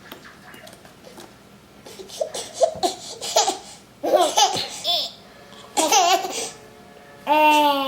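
11-month-old babies laughing and babbling in short bursts, with a longer drawn-out vocal sound near the end.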